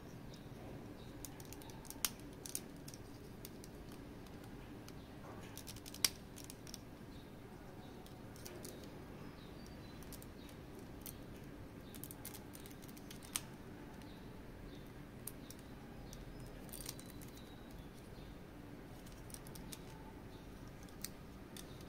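Scattered small clicks and taps from handling an action figure's hard parts and its packaging, a dozen or so at irregular intervals over a steady low hum. The sharpest clicks come about two seconds in, about six seconds in, and just past the middle.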